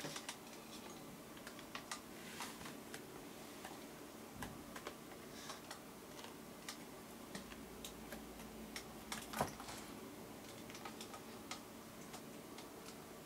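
Scattered light clicks and taps of a cat's claws and paws on a plastic basin as it climbs out, with one sharper knock about nine seconds in, over faint room tone.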